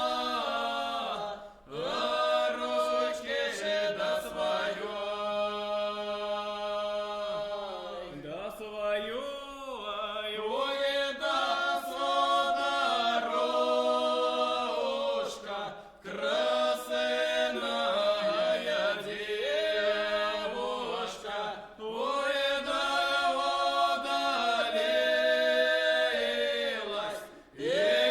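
Vocal trio singing a Russian lyrical folk song from the Kursk region a cappella in parts, in long drawn-out phrases with short breaks between them near the start, about halfway and near the end.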